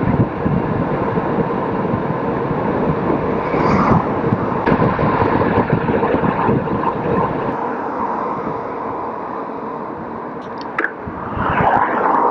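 Wind rushing over the microphone and tyre noise from an e-bike riding along a paved road, with a car passing close by near the end.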